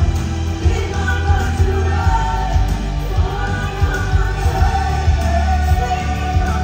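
Live show music: a woman singing over a backing track with heavy, steady bass.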